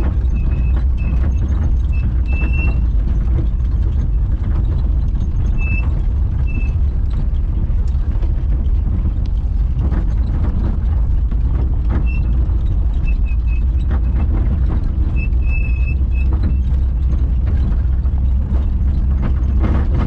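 A vehicle driving, a steady low rumble, with short high chirps now and then.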